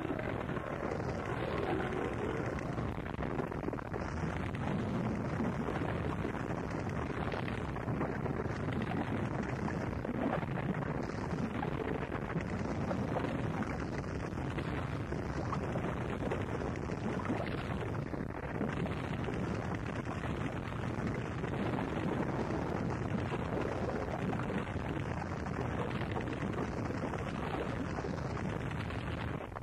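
Gorenoise recording: a continuous, heavily distorted wall of noise, muffled and bass-heavy, with no clear beat or melody.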